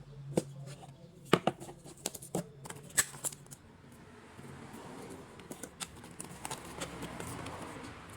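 Smartwatch box and packaging handled by hand: a run of sharp clicks and taps over the first three seconds, then several seconds of soft rustling and scraping with a few light ticks.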